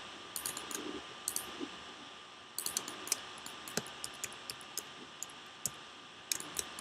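Computer keyboard keys and mouse buttons clicking at irregular intervals, single clicks and short quick runs, over a faint steady background hiss.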